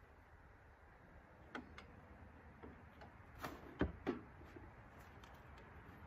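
Scattered clicks and knocks from a hand grease gun being worked at the grease fitting of a band wheel hub on a sawmill, packing the wheel bearing with grease. The loudest knock comes a little past the middle, with another just after it.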